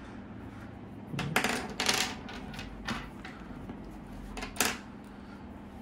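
Hanko personal seals being inked on a red ink pad and stamped onto a document: a few short knocks and clicks of the seals against the pad and the desk, a cluster about one and a half to two seconds in and another near the end.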